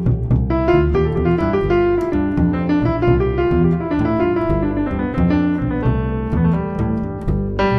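Piano music: a continuous run of notes over a low bass line.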